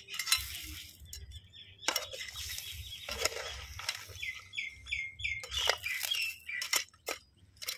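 Metal spoon scraping and clinking against an aluminium pan as crab curry is stirred. A bird chirps a quick string of notes about four seconds in.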